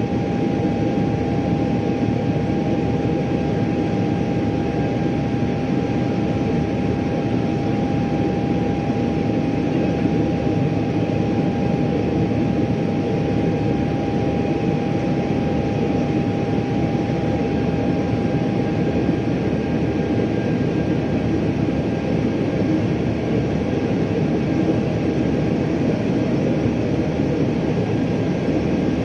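Steady cabin noise inside a Boeing 777-300ER climbing after takeoff: the drone of its GE90-115B turbofans and the rush of air past the fuselage, with a steady whining tone running through it.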